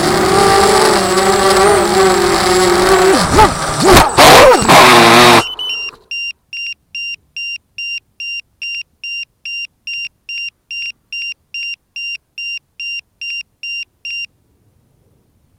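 ZMR 250 FPV quadcopter's brushless motors and propellers whining, the pitch swinging sharply up and down before the sound cuts off suddenly about five and a half seconds in, as in a crash. Then a steady run of short high electronic beeps, about two and a half a second, stops near the end.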